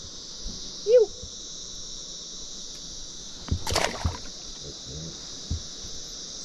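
Steady high-pitched chorus of night insects, crickets, with a short rising-and-falling call about a second in and a brief noisy burst, like a splash, about three and a half seconds in.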